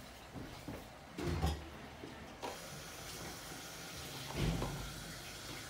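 A few soft thumps from a child's feet landing and running on a hard floor, and light knocks of plastic cups being set down into a stack, over a faint steady hiss.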